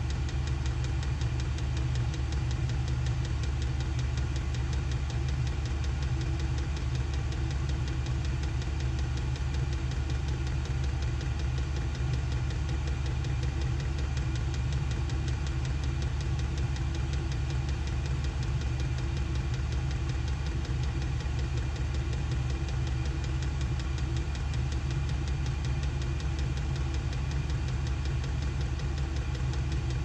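SILVEL diesel air heater running steadily at its full heat setting while its heat exchanger comes up to temperature: the even hum of its blower fan and burner over a deep low drone.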